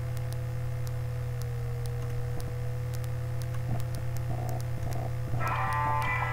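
Steady electrical hum on the recording, with faint ticks. About five seconds in, music starts: a rock song opening on electric guitar.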